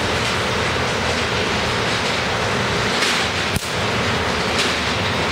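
A single sharp crack about three and a half seconds in: a hammer drives a pointed awl into an electron-beam-charged acrylic block, and its trapped charge of over two million volts discharges through it, forming a Lichtenberg figure. A loud, steady rushing noise runs underneath.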